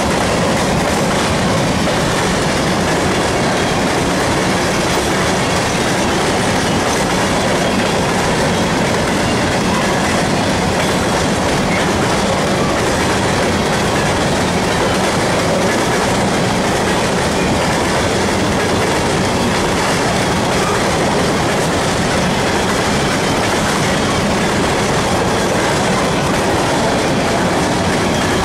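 Loud, steady noise of a freight train's steel covered hopper cars rolling past, their wheels running on the rails.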